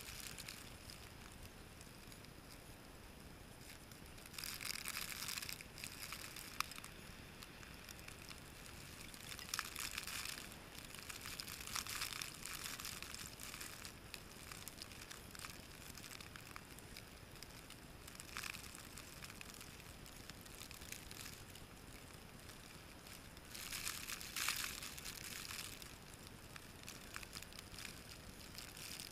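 Blizzard wind gusting with blowing snow: a steady hiss that swells louder in several gusts and dies back between them.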